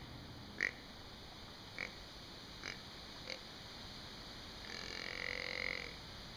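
Deer antlers tapped together lightly four times, sharp clicks spread over the first few seconds, a soft early-season rattling. Then a grunt-like deer call held for about a second near the end.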